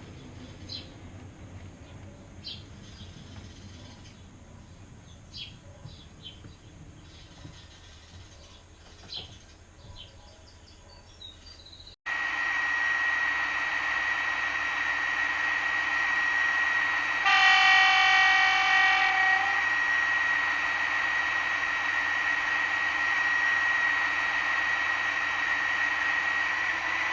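Quiet station ambience with faint high chirps. About twelve seconds in, a recorded train sound effect cuts in abruptly: a train's engine running with a steady high whine. Partway through, one train horn blast lasts about two seconds.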